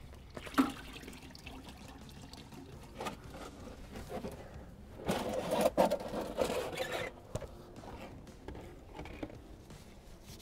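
Hydraulic oil pouring and dribbling into a drain pan as a spin-on case drain filter is unscrewed by hand, with a few clicks and knocks from handling the filter. The liquid sound is loudest about five to seven seconds in.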